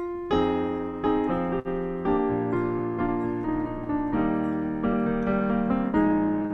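Piano playing a slow run of sustained chords, each struck and left to ring: the introduction to a hymn.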